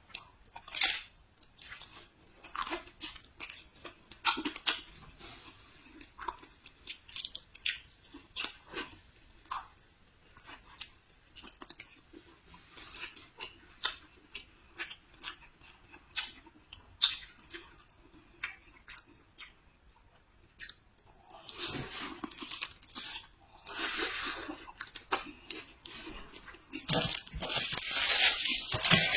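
Close-miked eating: bites and chewing of crisp food, with irregular crunches. About two-thirds of the way through the sound thickens into longer, louder stretches of noise that are loudest near the end.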